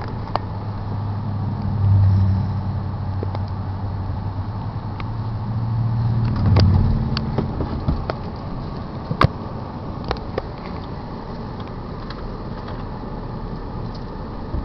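Passing cars: a low engine and tyre hum swells and fades twice, about two seconds in and again around six to seven seconds, over a steady outdoor rumble. A few sharp clicks, the loudest about nine seconds in.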